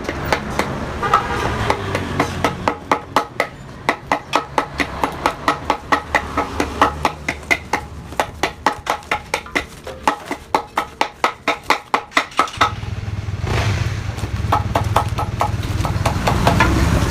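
Hammer blows on a metal motorcycle exhaust muffler being gutted, in an even rhythm of about three strikes a second. About twelve and a half seconds in the hammering stops and a steady low machine hum starts.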